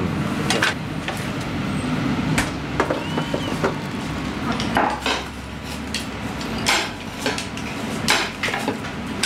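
Kitchen clatter: irregular clinks and knocks of utensils and dishes over a steady low hum.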